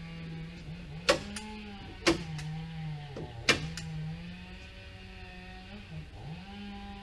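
A steady motor hum that sags in pitch now and then and recovers, with three sharp knocks over it, about one, two and three and a half seconds in.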